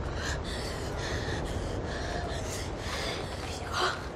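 A woman breathing raggedly and gasping, with rubbing and rustling as plastic sheeting is handled, over a steady low rumble. A louder gasp comes near the end.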